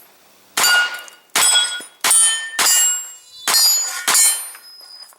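About six pistol-caliber carbine shots in quick succession, each followed by the bell-like ring of a steel target being hit.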